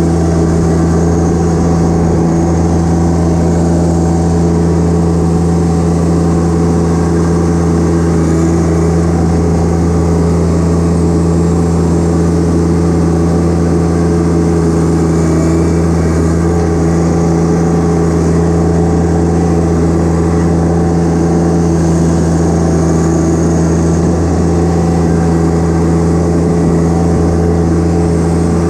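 John Deere 1025R compact tractor's three-cylinder diesel engine running at a steady speed while the tractor creeps along, heard from the driver's seat. The engine note holds even and unchanging throughout.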